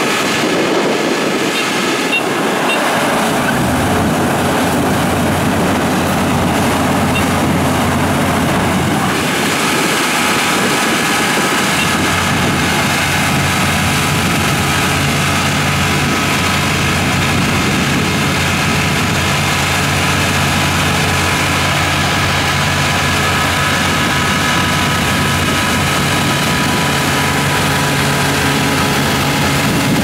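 Kubota ER-447 combine harvester running under load as it cuts rain-flattened (lodged) rice: a steady engine drone with several steady high whines over it. The low drone grows stronger about three seconds in, and more whines join about nine seconds in.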